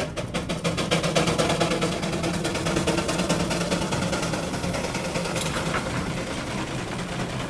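Russell 12-36 HP steam traction engine (7.5 in bore, 10 in stroke) running with its flywheel spinning fast, the engine beating in a quick, even rhythm. The sound gets louder right at the start and then holds steady.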